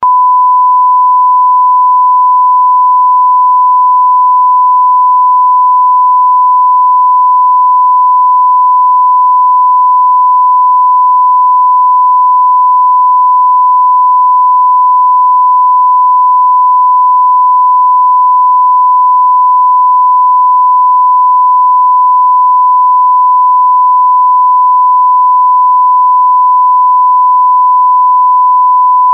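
Censor bleep sound effect: a single pure, steady tone held unbroken at constant loudness, with nothing else beneath it.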